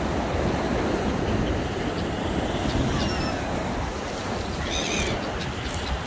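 Sea surf washing on a pebble beach, with wind buffeting the microphone. A gull gives a short call about five seconds in.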